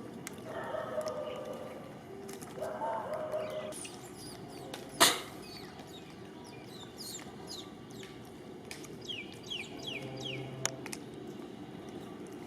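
Animal calls: two drawn-out pitched calls in the first few seconds, then a sharp knock about five seconds in, followed by a run of quick, high, falling chirps.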